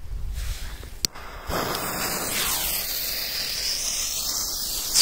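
Steady hissing of burning firecrackers, starting about a second and a half in after a sharp click. A loud whistle sets in at the very end.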